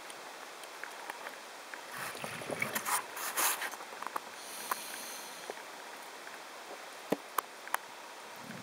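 Underwater ambience: a steady hiss with scattered clicks and crackles, a louder rush of noise about two seconds in, and three sharp clicks near the end.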